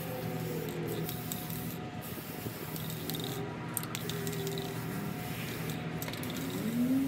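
Aerosol spray paint can hissing in long bursts, broken by short pauses between strokes.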